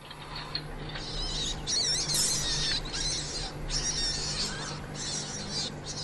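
An animal squealing in high-pitched, wavering cries over a hissy, noisy background with a low steady hum, loudest about two seconds in, with brief breaks.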